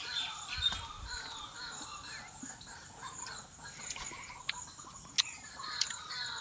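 Birds chirping and calling in the trees, many short overlapping calls, with a few sharp clicks near the end.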